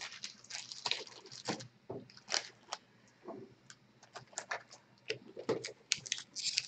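Trading cards being handled and shuffled by hand: a run of irregular light clicks, taps and slides of card stock.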